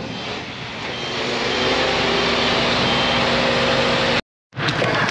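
Skip loader lorry's diesel engine running steadily, with a steady hum settling in about a second and a half in.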